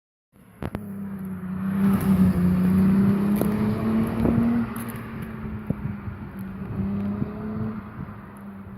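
Turbocharged Volkswagen Golf VR6 narrow-angle six-cylinder accelerating, its note rising slowly in pitch and loudest from about two to four and a half seconds in, then dropping back to a quieter run. A few sharp clicks sound over it.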